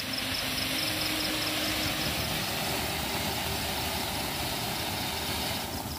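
Ground fountain fireworks spraying sparks with a steady, loud hiss that stops shortly before the end.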